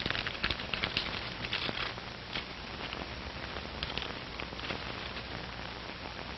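Paper crackling and rustling in short irregular clicks as a telegram envelope is opened and the message unfolded, busiest in the first couple of seconds, over a steady hiss.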